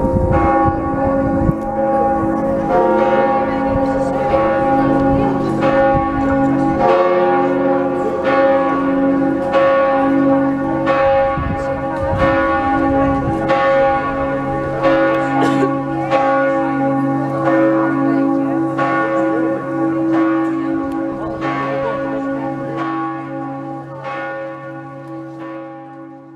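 Church tower bells ringing together, several pitches sounding at once with a fresh strike about once a second, the ringing dying away near the end.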